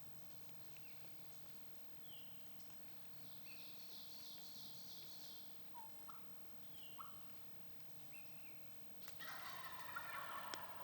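Wild turkey gobbler gobbling: a rapid rattling call in the last couple of seconds. Small birds give short chirps before it.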